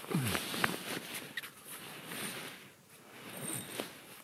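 Rustling and scattered light clicks of clothing and camping gear being handled, with a brief low falling sound right at the start.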